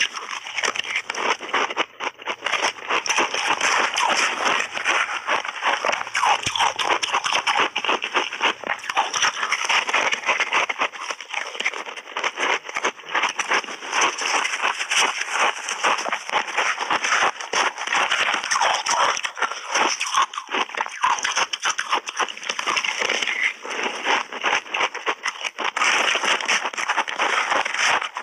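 Shaved ice coated in matcha powder being bitten and chewed close to lapel microphones: a dense, continuous crunching crackle.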